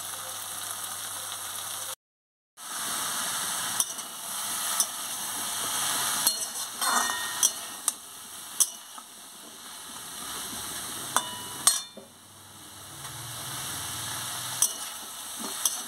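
Pumpkin, potato and chickpeas sizzling in a metal pan as a metal spatula stirs them, scraping and clinking against the pan now and then. There is a brief cut to silence about two seconds in.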